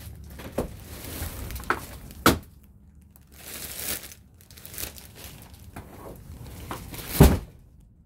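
Rustling and several knocks as the hinged bed platform of a travel-trailer bed is lifted to open the storage underneath. A louder low thunk comes about seven seconds in.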